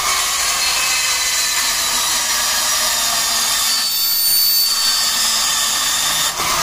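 Makita 18V cordless portable band saw running and cutting through a square steel tube held in a vise, a steady whine of the blade in metal that stops near the end as the cut finishes.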